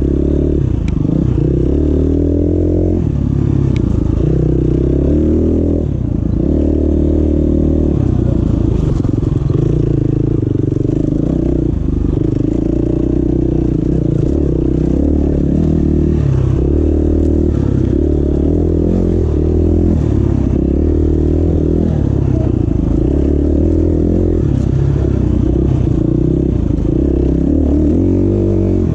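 KTM 350 XCF-W dirt bike's single-cylinder four-stroke engine running under way on a forest trail, its revs rising and falling again and again as the rider works the throttle.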